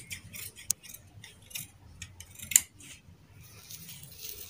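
Large tailor's scissors cutting through two layers of cotton kameez fabric: an irregular run of crisp blade snips, the loudest about two and a half seconds in. Then a soft rustle as the cut cloth is shifted.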